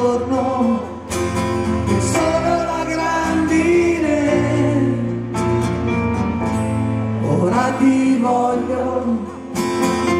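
Live rock song: a man singing over a strummed acoustic guitar, with keyboard accompaniment.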